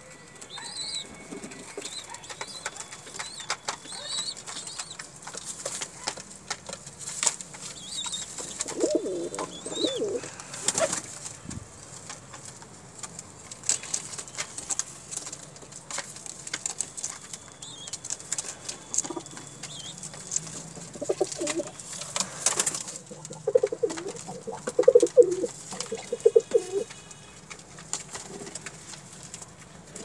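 Domestic pigeons pecking grain from a plastic-bottle feeder, with many sharp taps and clicks and a few wing flaps. Low cooing comes in short bouts, the longest in the last third.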